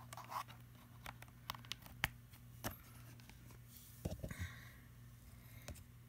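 Scattered small clicks and scrapes of a USB-C charging cable being handled and plugged into a tablet, the loudest a cluster about four seconds in, over a faint low steady hum.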